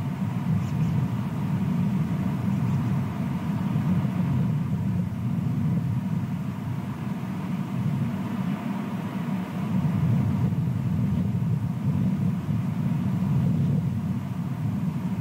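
Steady low outdoor rumble picked up by the nest camera's microphone, swelling and easing slowly, with no calls from the eagles.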